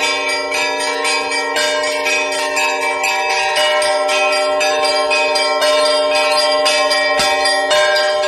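Orthodox church bells ringing a festive peal: several bells struck in quick succession, several strikes a second, over a steady wash of overlapping ringing tones.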